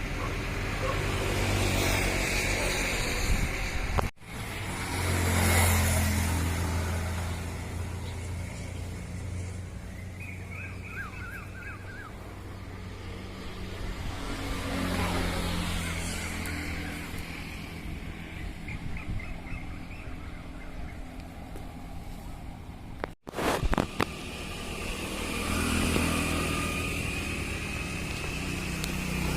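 Amphibious excavator's engine running under load, swelling and easing as it works. The sound breaks off abruptly twice, about four seconds in and again near the end.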